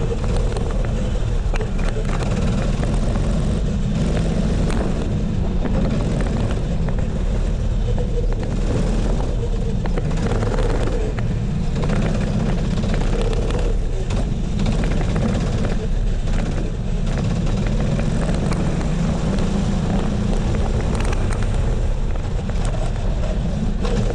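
Go-kart engine heard from the driver's seat, running steadily at part throttle on a slow warm-up lap, with a wavering engine note and a constant rush of wind and tyre noise over it.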